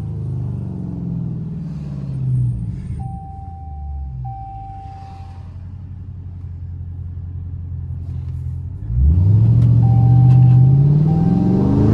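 Dodge Charger Scat Pack's 392 (6.4-litre) Hemi V8 exhaust with catless mid pipes, heard while driving. The revs fall and the engine cruises at light throttle, then about nine seconds in it goes into a hard pull, much louder, with the revs climbing steeply.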